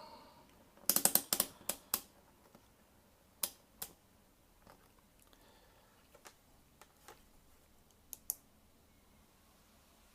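Light clicks and clatter from handling a cheap multimeter and its test leads: a quick run of sharp clicks about a second in, then scattered single clicks.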